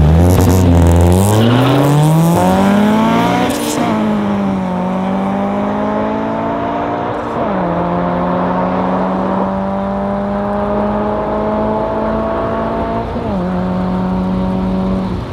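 Two hatchbacks, a BMW 1 Series M Performance and a Honda Civic, launching from a drag-race start and accelerating hard away. The engine note rises steeply at first, then drops and climbs again about 3.5, 7.5 and 13 seconds in as the cars shift up through the gears.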